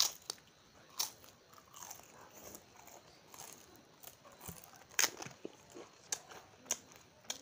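Close-up crunching as a person bites and chews thin fried papad crisps: sharp snaps, the loudest about a second in and about five seconds in, with softer crackly chewing between.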